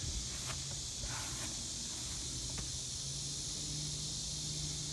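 Quiet outdoor background: a steady high hiss and a faint low hum, with a few soft clicks and handling noises.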